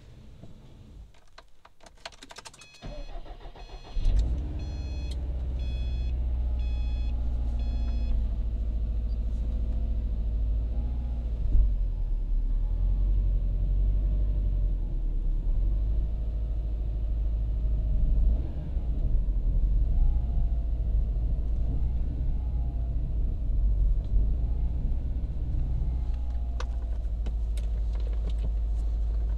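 2012 Subaru WRX STI's turbocharged 2.5-litre flat-four engine on a cold start: it cranks briefly, catches about four seconds in, and then idles steadily. A repeating high beep sounds for a few seconds just after it fires.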